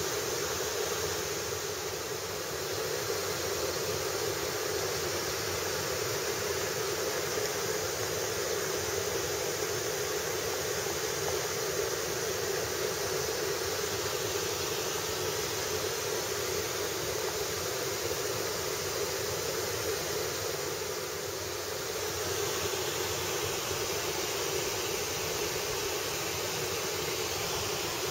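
Steady rushing noise with no breaks or distinct events.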